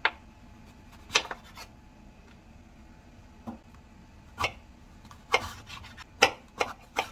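Kitchen knife cutting eggplant on a cutting board: about eight sharp, irregularly spaced strokes as the blade goes through the skin and knocks on the board.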